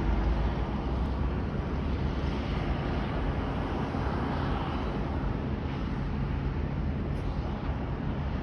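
Diesel engines of heavy earthmoving machines, bulldozers and scrapers, running steadily with a low rumble.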